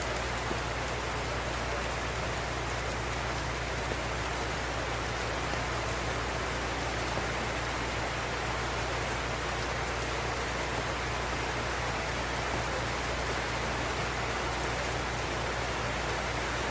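Tropical rain falling steadily: an even, unbroken hiss of rain with no lulls.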